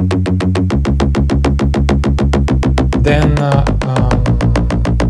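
Layered electronic synth bass loop, two Serum bass layers with a percussive attack layer on top, run through a compressor. It plays a fast, even pulse of about eight notes a second, and the bass pitch shifts a few times.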